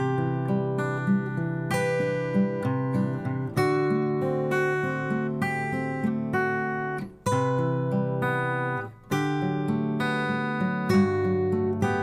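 Background music: acoustic guitar playing, with two brief pauses in the middle.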